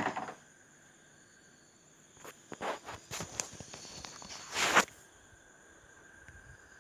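Handling noises while working on a fan: a short rustling scrape at the start, then a cluster of clicks and scrapes a couple of seconds in, ending in a louder scrape just before five seconds in.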